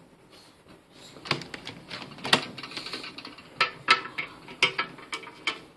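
Hard plastic blister packaging of a digital multimeter crackling and clicking as it is handled and turned over, a string of sharp irregular clicks starting about a second in.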